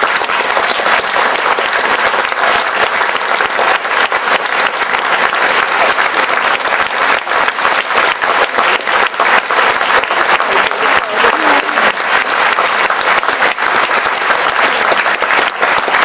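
A large seated audience applauding: dense, steady clapping.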